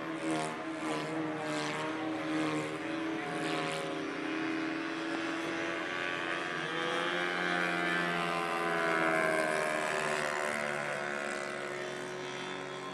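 Radio-controlled Gee Bee model plane's motor and propeller droning steadily in flight, the pitch rising and falling as it manoeuvres overhead.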